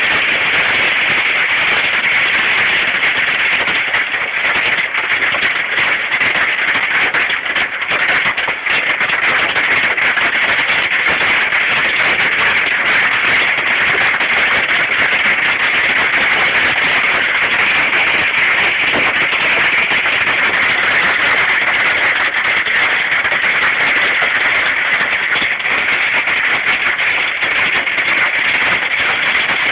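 Hailstones pelting down in a dense, steady clatter throughout.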